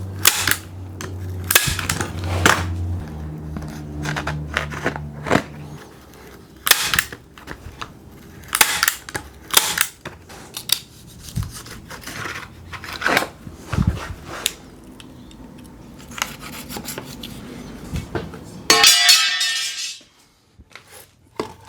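Irregular sharp bangs and knocks from timber framing being nail-gunned and knocked into place, with a low hum in the first few seconds and a louder, denser burst near the end.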